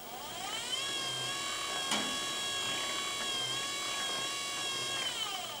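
Small DC windshield-wiper motor driving a metal lathe's lead-screw power feed, its whine rising in pitch as the speed is turned up, holding steady, then falling near the end as it is turned back down. A single click about two seconds in.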